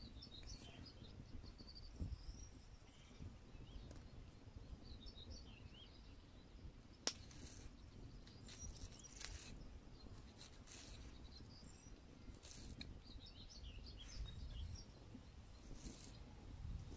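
Small knife slicing a peeled onion on a flat stone, a few short crisp cuts spread through, with one sharp click of the blade on the stone about seven seconds in. Birds chirp faintly now and then over low outdoor rumble.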